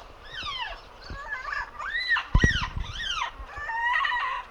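Birds squawking: a run of short, rising-and-falling calls, with a loud thump about two and a half seconds in.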